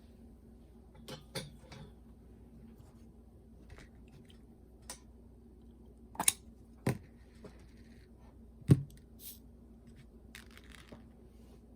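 Scattered light clicks and taps of small plastic walkman parts being handled and fitted, with the two sharpest knocks about six and nine seconds in, over a faint steady hum.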